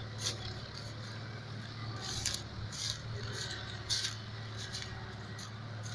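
Tractor diesel engine running steadily at low revs while towing a loaded sugarcane trolley, with a few short crackles and rattles over it.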